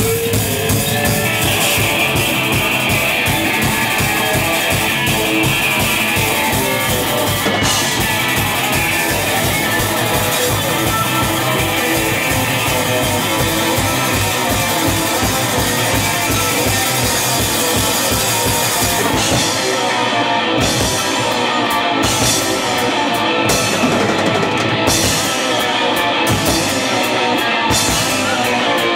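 Live rock band playing electric guitars and a drum kit, loud and steady. About two-thirds of the way in, the bright top of the sound starts cutting in and out about once a second.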